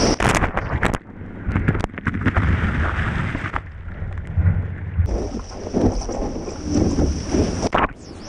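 Water rushing and splashing around a stand-up paddle board riding through whitewater, heard from a board-mounted camera, with a low wind rumble on the microphone and irregular sharp slaps as spray hits the camera. Near the end a wave breaks over the board.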